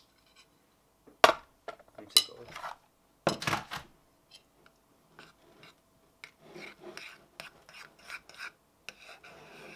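A metal spoon mixing whey protein powder into cooked oats in a ceramic bowl. A few sharp clinks of spoon and bowl come in the first few seconds. Then comes a run of soft scraping strokes, about two to three a second.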